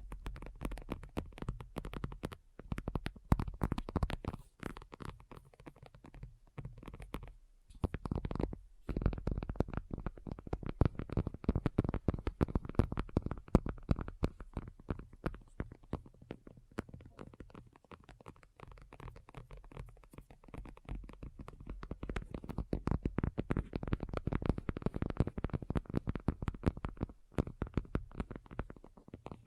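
Fingernails tapping rapidly and continuously, many quick clicks a second, with brief pauses about a quarter of the way in and near the end.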